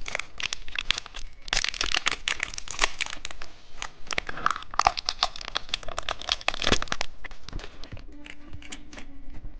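A candy wrapper being crinkled and torn open, with dense irregular crackling for most of the time. Near the end the crackling fades and soft background music comes in.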